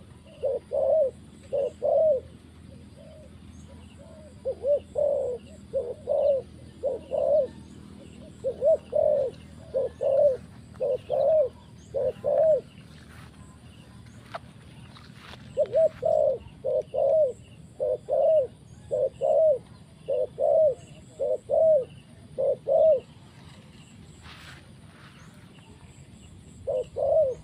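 Spotted dove cooing: repeated low coos in quick groups. One run lasts about the first twelve seconds, then there is a pause of about three seconds and a second run, and after a longer pause the cooing starts again near the end.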